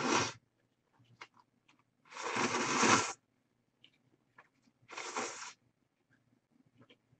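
Three breathy puffs of air blowing on hot ramyeon noodles to cool them, the longest and loudest about two seconds in, with faint clicks of wooden chopsticks and small eating noises between.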